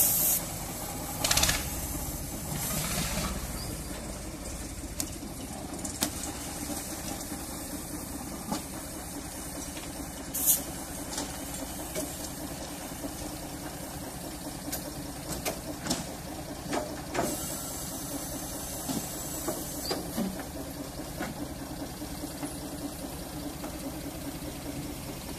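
Small 2 ft gauge Kerr Stuart steam locomotive of 1917, standing or moving slowly at the platform with a steady steam hiss and the occasional metallic clank. A louder, brighter blow of steam comes about two-thirds of the way through.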